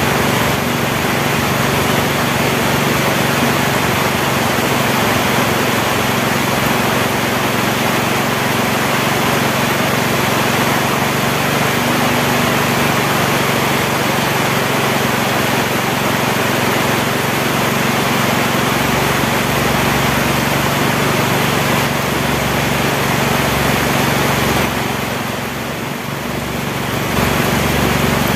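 Heavy rain falling steadily, a dense hiss, with a steady low hum beneath it, briefly easing a little near the end.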